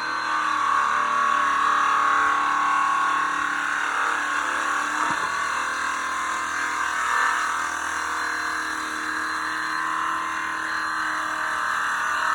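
Circular saw cutting through two stacked 1.5-inch-thick boards at once, the motor and blade running steadily through the wood.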